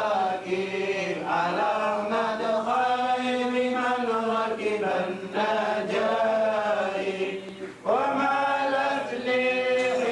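A voice chanting in long, melodic held phrases, in the style of Quran recitation, with a short breath-pause about eight seconds in before the next phrase begins.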